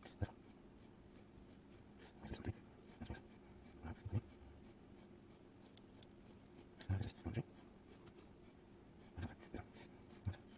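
Irregular small clicks and taps of metal parts and tools being handled while a KABA Penta lock is taken apart, its pins removed one by one. A faint steady hum lies underneath.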